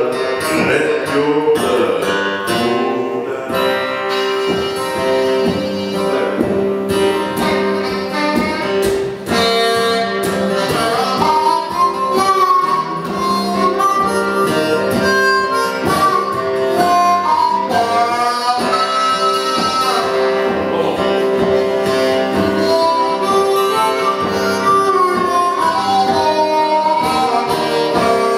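Acoustic country blues: a harmonica plays a wailing lead line over steady acoustic guitar accompaniment.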